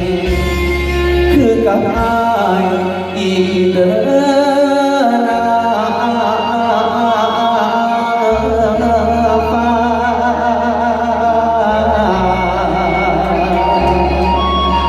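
Loud music from a Thai song: an instrumental passage with a wavering, ornamented melody over heavy deep bass.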